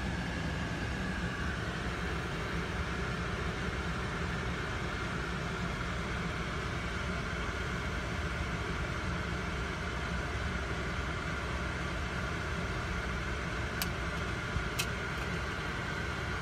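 Steady rumble and hiss inside a car's cabin with the engine idling. Two short, sharp clicks about a second apart near the end.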